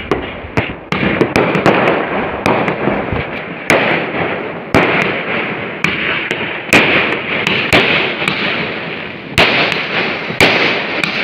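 Aerial fireworks and firecrackers going off: a dozen or more sharp bangs at irregular intervals over a continuous crackling.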